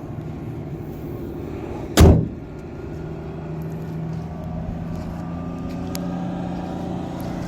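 A single loud thump about two seconds in, with a short ring after it, over a steady low mechanical hum of an engine running.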